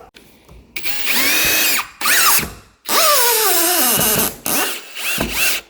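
Power drill driving a long steel screw into a wooden door jamb in several trigger pulls; the motor's whine drops in pitch under load during the longest run, then a few short bursts near the end as the screw is driven home.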